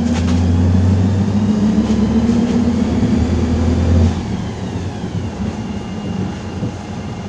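Engine of a PAZ-320405-04 Vector Next bus running as it drives, a steady low drone heard from inside the passenger cabin. The drone drops in level about four seconds in.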